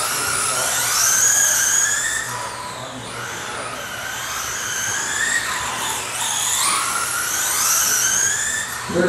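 Several radio-controlled racing cars driving laps, their motors whining and rising and falling in pitch as they accelerate and brake through the turns.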